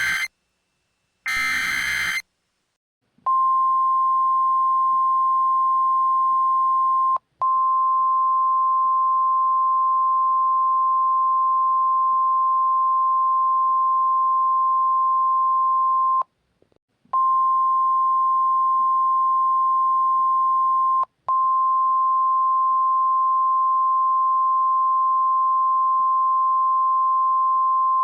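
End of an EAS SAME header: two short screechy bursts of digital data tones in the first two seconds. After about a second of quiet comes NOAA Weather Radio's 1050 Hz warning alarm tone, a single steady high beep. The beep cuts out briefly three times, the longest gap nearly a second.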